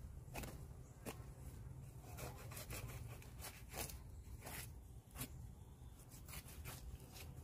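Knife slicing and tearing through the membrane and meat of a skinned whitetail deer carcass as a shoulder is cut free: faint, irregular short scraping and tearing strokes over a low steady rumble.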